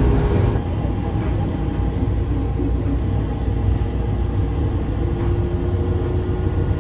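Airport people-mover tram in motion, heard from inside the car: a steady low rumble with a faint steady hum above it.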